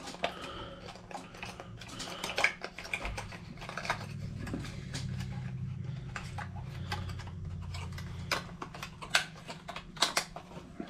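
Fingers working open a small plastic package of fishing lures: a run of irregular sharp plastic clicks and crackles.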